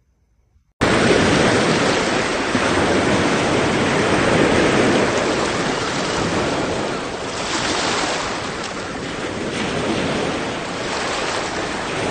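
Surf washing onto a sandy beach, with wind rushing on the microphone: a loud, even rush that starts suddenly about a second in and swells and eases a little.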